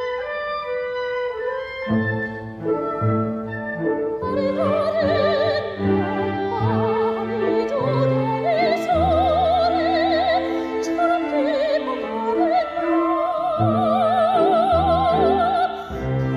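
Operatic soprano singing with a wide vibrato, accompanied by a symphony orchestra with strings; she holds long high notes in the second half.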